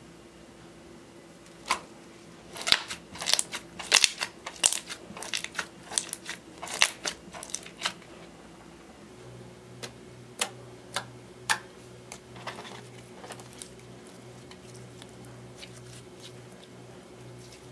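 Glittery slime, clear slime tinted with green eyeshadow, being poked, pressed and folded by hand, giving sharp sticky clicks and small air-bubble pops. They come thick and fast for about six seconds early on, then only a few scattered ones.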